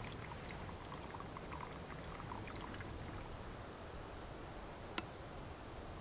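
Faint trickle of water: small scattered drips and bubbling blips over a steady soft hiss, busiest in the first half. One sharp click about five seconds in.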